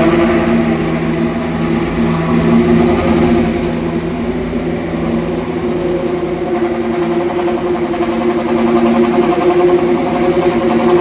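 Ferrari Formula 1 V10 engine idling steadily just after start-up, holding an even, high-pitched note with little change in revs.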